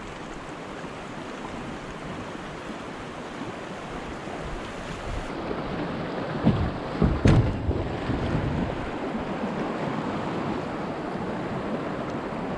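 Rushing river water and wind on the microphone as a kayak runs through choppy riffles, louder after about five seconds, with a few thumps about seven seconds in.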